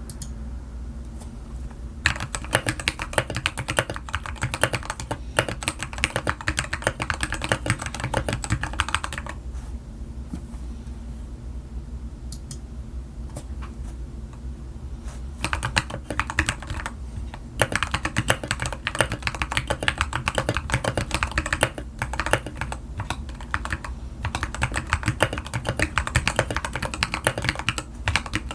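Typing on an LTC Nimbleback mechanical keyboard with Gateron Milky Yellow Pro linear switches, XDA keycaps, lubed stabilizers and a silicone-filled, tape-modded case. It comes in quick runs of keystrokes, with a sparser stretch of only a few key presses in the middle.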